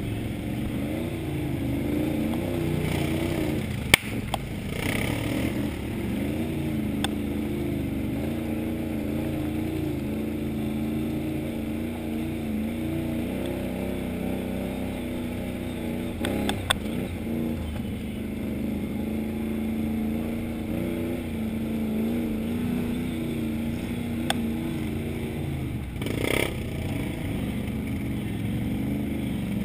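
Can-Am XMR 1000R ATV's V-twin engine running at trail speed, heard from the rider's seat, its pitch rising and falling with the throttle. A single sharp knock about four seconds in, and a few lighter clicks later.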